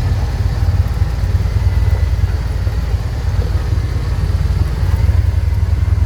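Dune buggy engine running while the buggy drives over a rough dirt forest track: a steady low rumble.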